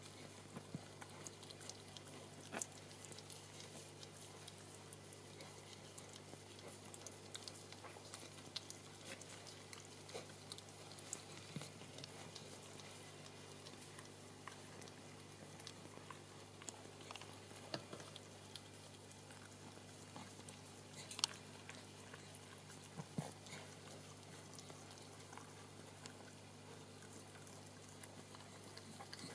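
Sheltie mother licking her newborn puppy clean: faint wet licking and smacking, with scattered small clicks over a steady low hum.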